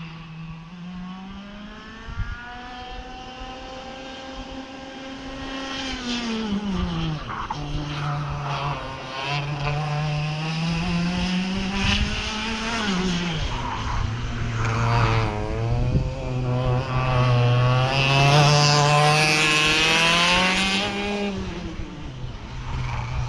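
Racing kart engines running on a track out of sight: the engine note climbs as they accelerate and drops sharply as they brake for the corners, again and again. It grows louder to a peak about three quarters of the way through, then falls away.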